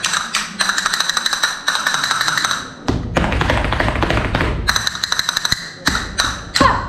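Flamenco castanets played in quick rolls of sharp clicks, in several runs with short breaks. A low rumble sounds under the clicks from about three to nearly five seconds in.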